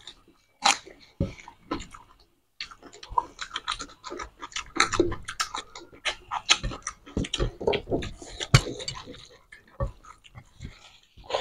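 Close-up chewing and lip-smacking of people eating rice and mutton curry with their hands: an irregular run of wet smacks and clicks, with a short pause about two seconds in.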